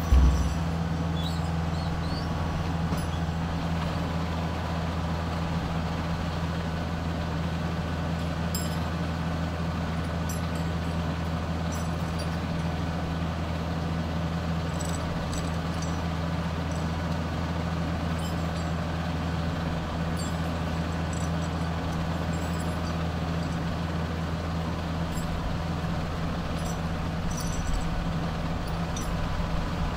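Kubota L4060 tractor's diesel engine running steadily at a constant speed, with a brief knock right at the start.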